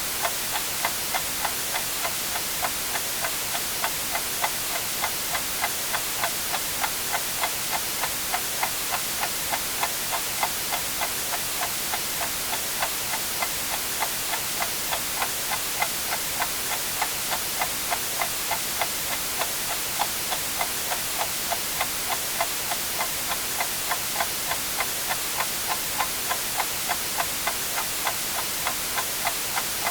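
Clock ticking steadily, about two ticks a second, over a constant white-noise hiss.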